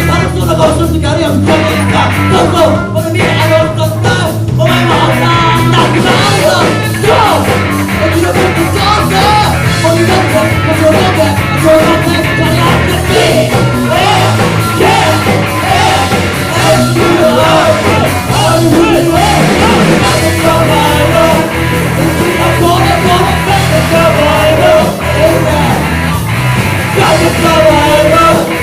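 Rock band playing a song with a singer, loud and continuous, with bass, drums and guitar under the vocal line.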